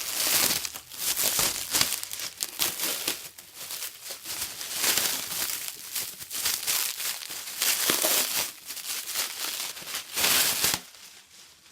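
Skate packaging being handled and unwrapped: irregular crinkling and rustling, stopping shortly before the end.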